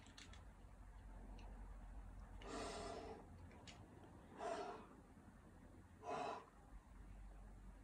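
A rock climber's forceful breaths, pushed out with effort while working through hard moves on a steep route. Three of them come about two seconds apart, and the first is the longest.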